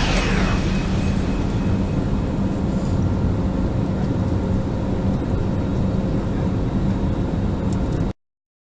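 Aircraft engine running steadily: a low rumble with a steady hum over it, cut off abruptly near the end.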